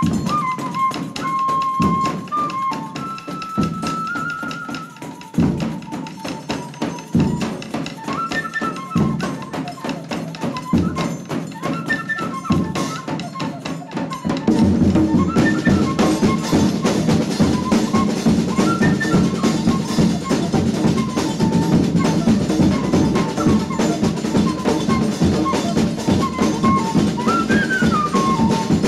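Cane fife (pífano) playing a melody over a Brazilian folk percussion ensemble of zabumba bass drums, caixa snare drums, pandeiro and cymbals. About halfway through, the drumming becomes louder and denser.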